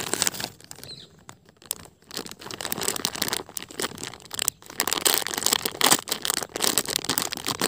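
Clear plastic jewellery packets crinkling as they are handled, a dense run of crackles that is sparser for the first couple of seconds and busier after.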